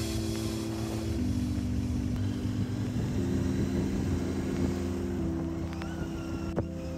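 Background music: held synth chords that change about every two seconds, over a steady rushing noise.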